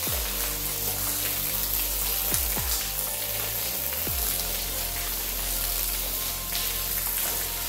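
Pressure washer jet spraying water over a soaked, soapy rug and the concrete floor around it, a steady hiss. Music with low notes plays underneath.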